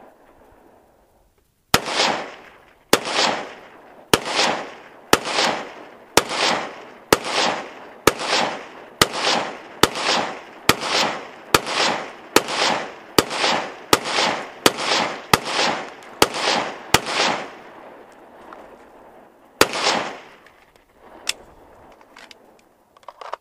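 ArmaLite SPR Mod 1 AR-15 rifle in 5.56 firing rapid semi-automatic shots, about two dozen at nearly two a second, each trailed by a rolling echo. Then a pause and two more spaced shots near the end.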